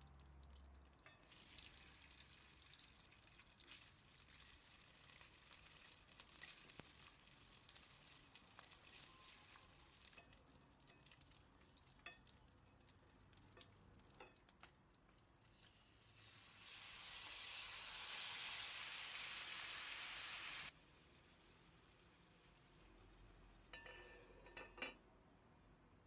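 Food sizzling in a hot frying pan, with light clicks of stirring. The sizzle grows louder for a few seconds past the middle, then cuts off suddenly.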